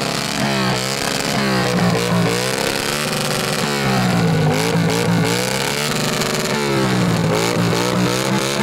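Motorcycle engine revved hard through a loud exhaust, blipped over and over so the pitch rises and falls about once a second.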